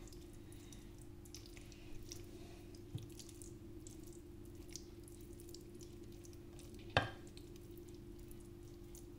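Faint scraping and squishing of a spatula pressing cooked minced beef flat in a glass baking dish, with one sharp knock about seven seconds in. A steady low hum runs underneath.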